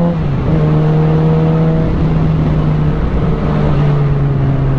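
Sport bike engine running at steady cruising revs under way. Its pitch dips briefly about a quarter second in and recovers, over a steady rush of wind noise.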